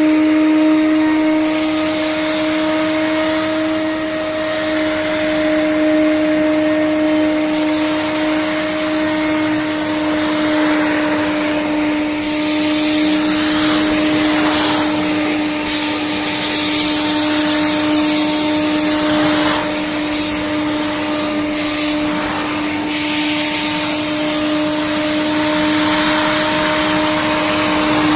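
Numatic WVD900 wet and dry industrial vacuum cleaner running with a steady motor hum. Through the second half its hissing airflow swells and drops in irregular stretches as the tool sucks up water.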